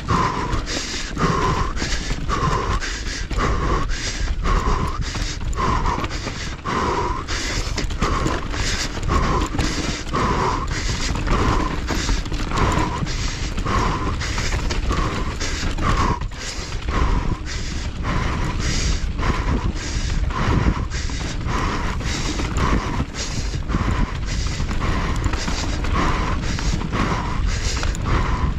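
Mountain bike ridden fast down a rough, loose dirt trail: steady tyre and wind noise with constant clattering from the bike, and the rider's hard breathing repeating about every 0.8 seconds.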